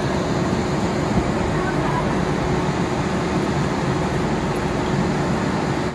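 Steady ambience of a busy railway station: the chatter of a crowd on the platforms over a low, even rumble, with a faint steady tone running through it.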